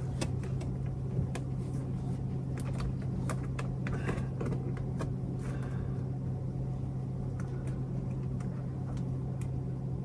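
A steady low mechanical hum of a running motor, with scattered light clicks and taps and a couple of brief rubbing sounds of hands pressing glued vinyl headliner into place on the ceiling.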